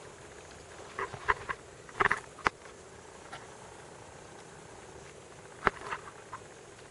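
Scattered short knocks and splashes from a kayak and paddle, a cluster about a second in and one sharp knock near the end, over a faint steady high hiss.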